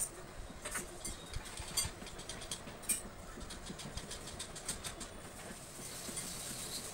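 Pencil scratching on drawing paper in short strokes, then a longer continuous stroke near the end, over a low steady background hum.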